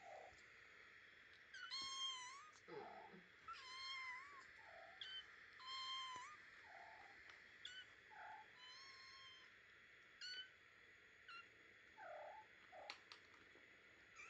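Kittens meowing: a run of high, thin meows, several long ones in the first ten seconds, with short squeaks and chirps in between.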